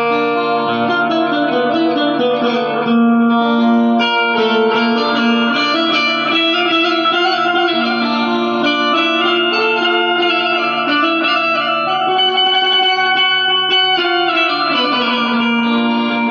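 Indian banjo (bulbul tarang) playing a melody of plucked metal-string notes over a steady low drone, run through a compressor effect.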